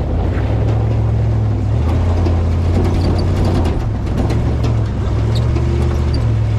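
Off-road vehicle's engine running at low revs, its pitch dropping and rising a couple of times as the throttle changes, with light clicks and rattles over it.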